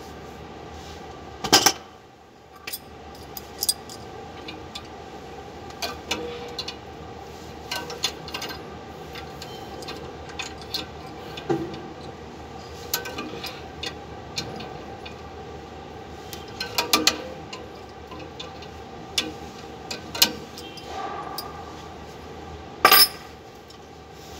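Metal hand tools and brake parts clinking and clanking now and then during bus brake-shoe work, with sharp knocks about a second and a half in, midway, and near the end. A steady hum runs underneath.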